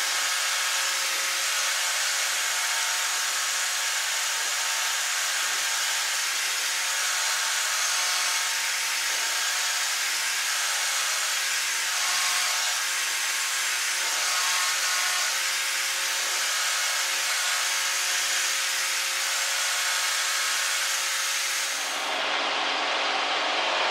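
Steady wind rush and engine drone inside a light aircraft's cockpit in flight on an aerotow, with a faint steady hum under the hiss. About 22 seconds in, the sound turns duller and deeper.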